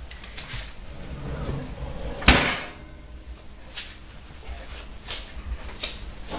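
A kitchen door shut with one sharp bang about two seconds in, followed by a few lighter knocks and clicks.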